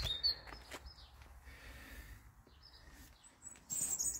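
Small songbirds chirping: a few short calls at the start and a run of high chirps near the end, over a faint low background rumble.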